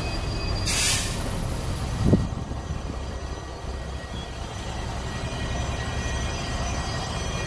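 An Iveco bus driving past close by on a wet road, its engine and tyres giving a steady low rumble. A short burst of air hiss comes about a second in, and a brief thump just after two seconds.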